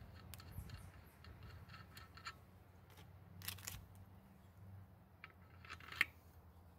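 A new car strut being primed by hand, its rod pushed down and let back up. It gives only faint scrapes and light metal clicks, with one sharper click about six seconds in.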